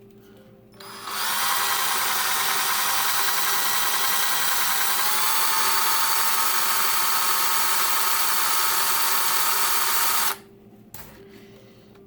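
Power drill starts about a second in and runs steadily for about nine seconds, spinning a scale-model car tire on a bolt mandrel against a sanding block to true it. Its whine steps up slightly in pitch about halfway through, and it stops suddenly near the end.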